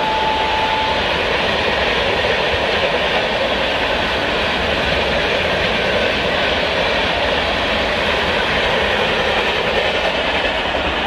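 Indian express passenger train running, a steady noise of wheels on rail and coach rumble. A faint steady whine sounds for about the first second.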